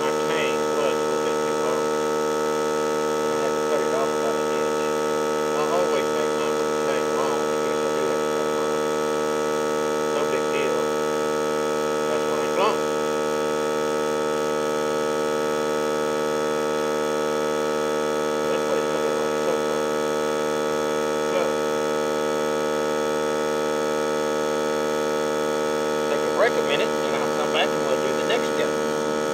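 Air compressor running steadily, a constant hum of several tones, feeding air to a forge while a knife blank heats. Short faint chirps come over it now and then, most near the end.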